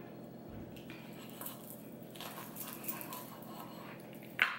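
Romaine lettuce leaves crinkling and crunching softly as a lettuce-wrap taco is folded by hand on a wooden cutting board, with one brief, louder sharp sound near the end.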